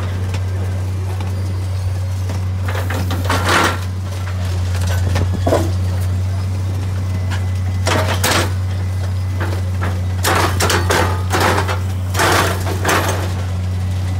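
Track-laying machine running with a steady low hum, and short irregular bursts of mechanical noise from its working parts every second or two.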